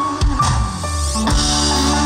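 Live rock band playing through the stage PA: electric guitars, drum kit and keyboard. A held, wavering note gives way about a quarter second in to deep bass notes and drums, which carry on.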